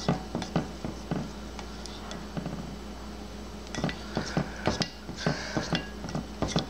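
A utensil clinking and tapping against a glass bowl of glue and water, in quick irregular knocks, with a busier run of clicks in the second half.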